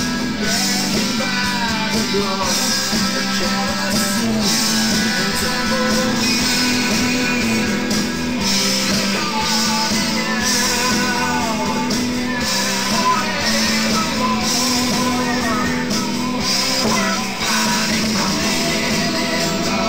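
Rock and roll song playing, a full band with guitars.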